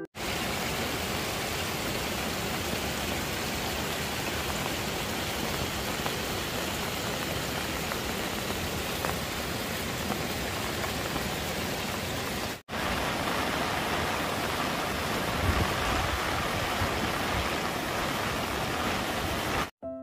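Heavy downpour: a steady hiss of rain together with the rush of a flood-swollen river. The sound cuts out for an instant about two-thirds of the way through, then carries on the same.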